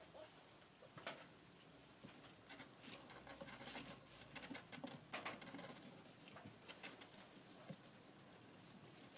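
Ferret kits scrabbling over one another in loose wood shavings: faint rustling and scratching with scattered small clicks, busiest in the middle.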